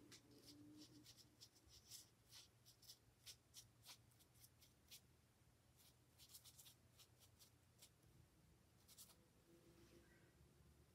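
Faint, quick, scratchy strokes of a Chinese ink brush on paper, coming in clusters with short pauses, over a low steady room hum.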